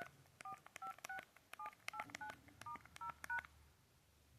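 LG cell phone keypad being dialed: about ten short two-note touch tones (DTMF) in quick succession, each with a faint key click, then the tones stop about three and a half seconds in.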